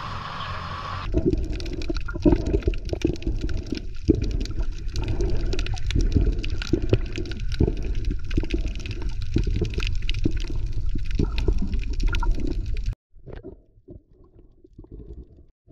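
Water heard through a submerged action camera: a muffled low rushing and gurgling, thick with small crackles and clicks. It cuts off suddenly near the end, leaving only faint sound.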